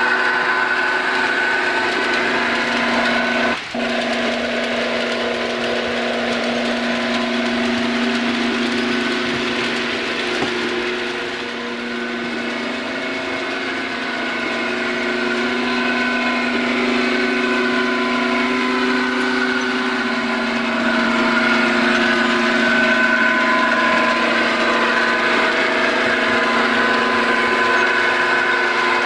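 Model diesel locomotive's DCC sound decoder playing a diesel engine running, steady and loud, with a brief dip about three and a half seconds in and a slight rise in level near the end.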